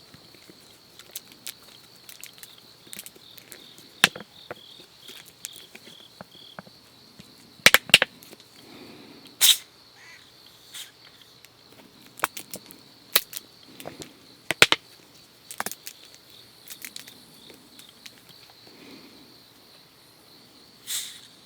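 Crickets chirping steadily in a high, continuous trill, broken by scattered sharp clicks and knocks of objects being handled, the loudest a double knock about eight seconds in.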